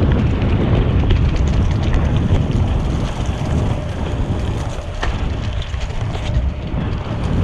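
Wind buffeting a camera microphone on a moving bicycle, over the low rumble of a Cannondale CAADX cyclocross bike's tyres rolling on packed gravel, with a few small clicks. The noise eases a little past the middle.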